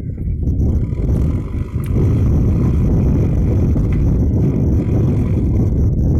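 JCB backhoe loader's diesel engine running at work as a steady low rumble, a little louder from about two seconds in, with wind buffeting the microphone.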